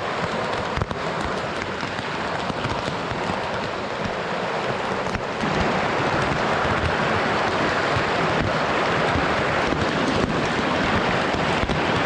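Steady noise of heavy rain and running river water, with a scatter of small ticks, growing louder about five and a half seconds in.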